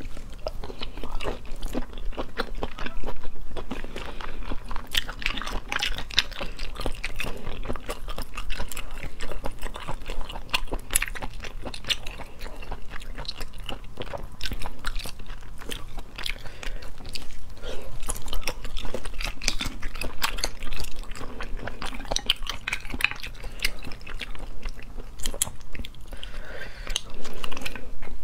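Close-miked chewing and biting of spicy braised abalone, a dense run of small wet clicks and smacks.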